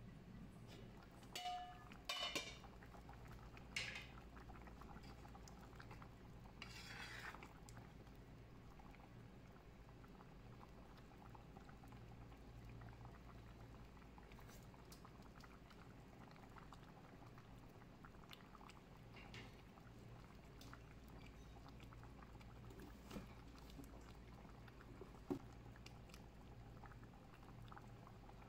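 Metal lid lifted off an aluminium pot with a few clinks in the first seconds and a short scrape, then fish curry simmering with faint, soft bubbling.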